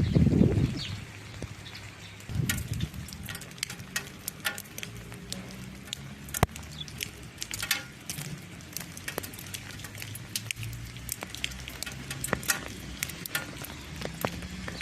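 Irregular light taps and clicks, scattered unevenly, over a low steady hum, with a louder low rumble right at the start and another about two and a half seconds in.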